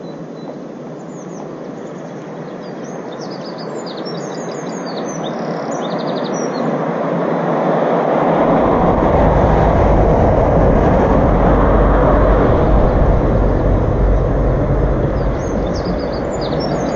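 A rushing noise that swells over several seconds and stays loud, with a deep rumble coming in about halfway through. Small birds chirp above it in the first few seconds and again near the end.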